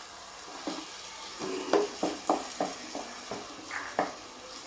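Wooden spatula stirring onions and capsicum in a kadai, scraping and knocking against the pan about ten times over a faint sizzle of frying.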